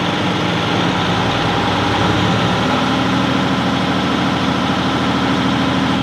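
Cummins ISX15 diesel engine running steadily, its note changing about two seconds in as fuel rail pressure climbs. The engine is being checked for a logged internal high-pressure fuel leak fault that is not happening at this moment.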